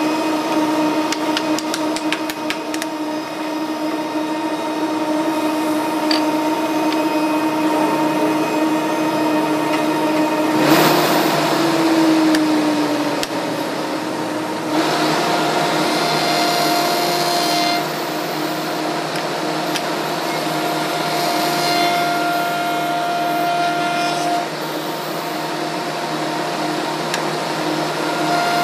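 A 10 hp spindle shaper running with a steady whine while its cutter shapes a mahogany easement fed against the bearing collar. About 11 seconds in the cutting noise comes in suddenly and the whine dips in pitch. A second, steadier stretch of cutting noise starts about 15 seconds in.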